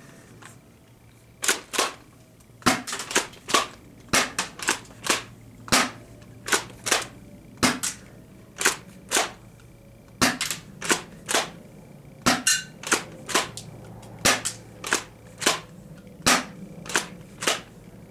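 Spring-powered airsoft shotgun being pumped and fired over and over: a run of sharp clacks, one to two a second, many in close pairs.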